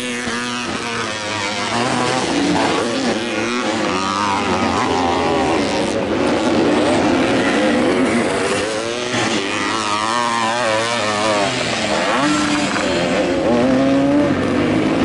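Vintage motocross motorcycles racing, several engines overlapping, their pitch rising and falling again and again as they rev up and back off.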